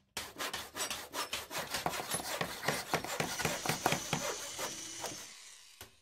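A rapid run of rasping, scratching strokes, several a second, like a tool or pencil worked back and forth over a surface. They fade out after about five seconds, and a few last strokes come near the end.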